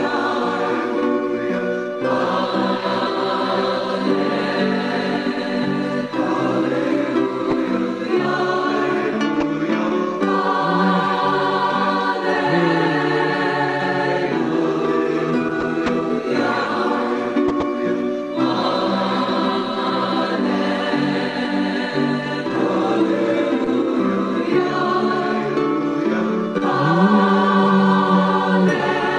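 Choral music: a choir singing long held chords that change every few seconds.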